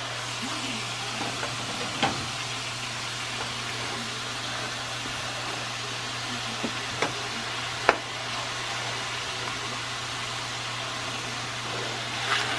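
Vegetables sizzling in a stainless steel pan as they are stir-fried, over a steady low hum, with a few sharp knocks of the spatula against the pan; the loudest knock comes about eight seconds in.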